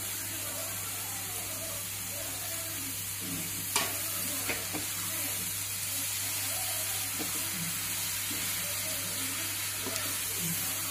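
Mushroom pieces sizzling in a frying pan of masala while a wooden spatula stirs and scrapes them, with a sharp knock about four seconds in and a smaller one just after.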